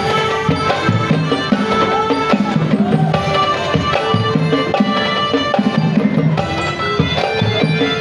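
A marching band playing a tune, with sustained melodic instruments over steady drum strikes.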